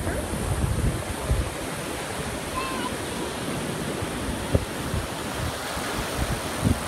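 Ocean surf breaking and washing up a sandy beach: a steady rush of waves, with some wind buffeting the microphone.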